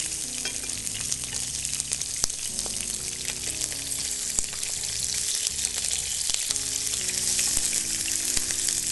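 Mackerel pieces frying in hot olive oil in a pan, giving off a steady sizzle as the skin sears and the fish releases its fat. A few sharp clicks of the metal fork and spoon against the pan come through as the pieces are turned.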